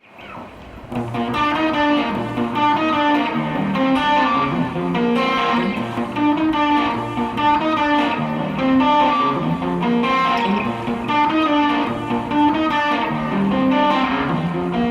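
Electric guitar played through a Zoom G5n multi-effects processor on a lead tone, a melodic lead line of many single notes that swells in over the first second and then plays on steadily.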